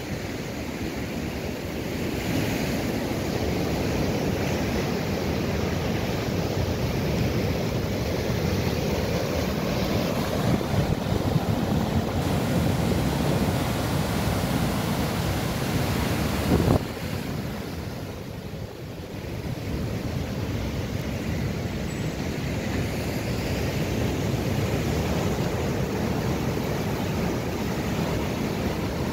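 Rough storm surf breaking and washing in over the shore, a steady churning rush of water, with wind on the microphone. The sound drops briefly about two-thirds of the way in, then comes back as before.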